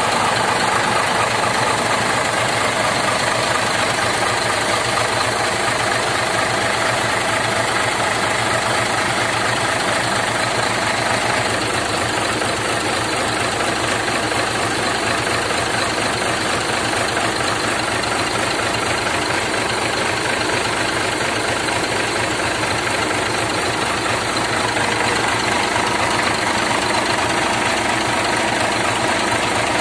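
Hino 500 truck's turbocharged diesel engine running steadily at idle, with the turbocharger's whine over the engine note.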